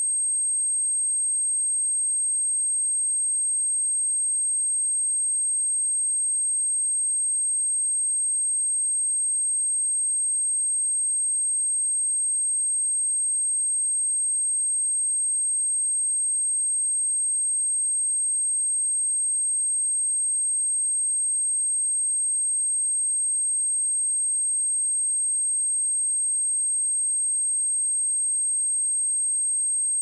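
A steady, unbroken high-pitched 8416 Hz sine-wave test tone, a single pure tone with no change in pitch or level.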